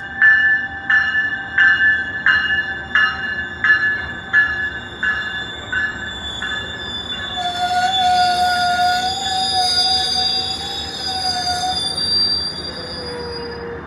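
Metrolink commuter train at the station: a bell rings steadily, about one and a half strikes a second, for the first six seconds, like a grade-crossing warning bell. From about halfway in, the train's wheels squeal on the rail in high, wavering tones for several seconds over the rolling noise, then fade.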